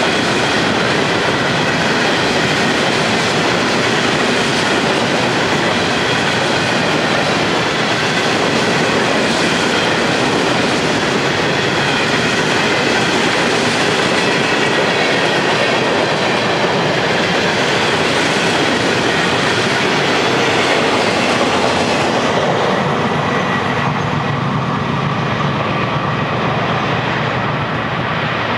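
Freight cars of a steel-slab train rolling past on curved track: steel wheels on rail with clickety-clack and a faint, steady high squeal from the wheels on the curve. About 22 seconds in the last cars go by and the sound thins and fades.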